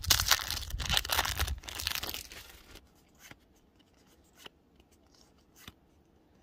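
Foil wrapper of a Pokémon booster pack tearing and crinkling as it is ripped open, for about the first three seconds; then a few faint short ticks as the cards are handled.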